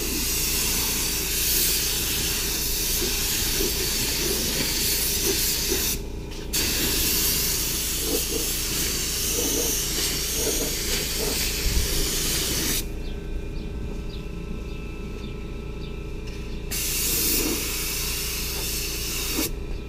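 Compressed-air gravity-feed paint spray gun hissing as it lays a coat of clear on a truck fender. The hiss breaks off briefly about six seconds in and stops for about four seconds past the middle as the trigger is let go, then resumes.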